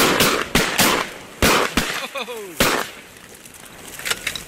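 Volley of shotgun blasts from several hunters in a duck blind, about six shots in quick, uneven succession over the first three seconds, then quieter.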